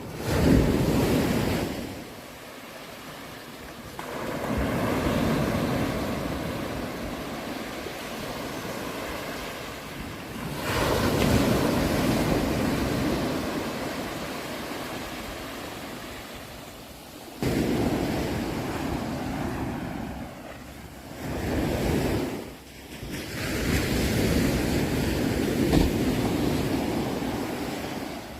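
Sea waves breaking and washing ashore in repeated surges, each swelling up and then drawing back, about six in all; one breaks sharply about two-thirds of the way in.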